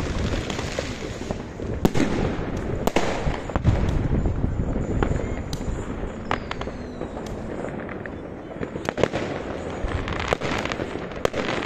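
Many aerial fireworks going off at once: a continuous rumble and crackle of bangs, with sharper, louder bangs about two and three seconds in and a quick cluster of them near the end.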